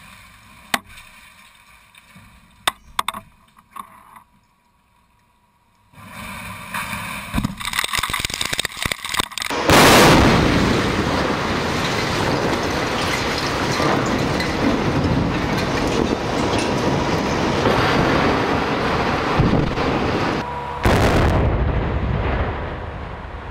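Explosive demolition of a power house's ancillary structures: a few sharp blast cracks, then a rising crackle of charges, then a sudden loud, long rumble of the structures collapsing, with a second loud burst near the end.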